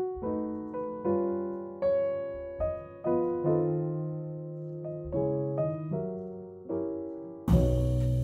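Background music: a piano playing a slow run of notes and chords, each struck and fading away. Near the end a fuller track with a low bass line and drum hits cuts in.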